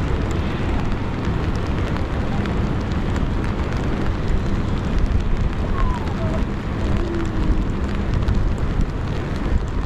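Steady rain falling, with wind noise rumbling on the action camera's microphone and the small ticks of raindrops hitting it.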